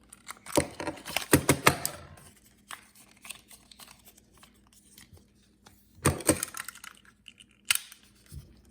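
Hasselblad 500 film cassette insert being handled: sharp clicks and rattles of its metal parts and spools, mixed with the rustle of roll-film backing paper. It comes in a flurry over the first two seconds, again around six seconds, and once more just before eight seconds.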